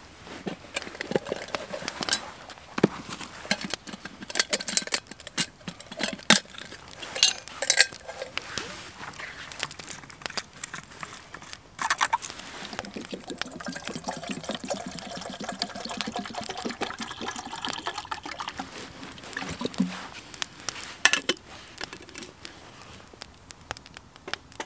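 Sharp snaps and clicks from a small wood fire and its handling in a flat camp stove, then, from about halfway, water poured into a metal kettle for several seconds with a steady ringing pitch, followed by a single knock as the kettle is set down near the end.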